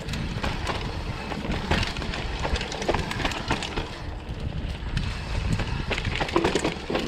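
Mountain bike clattering and rattling over a rough dirt trail on a fast descent, with irregular knocks from the bike and wind rumbling over the microphone.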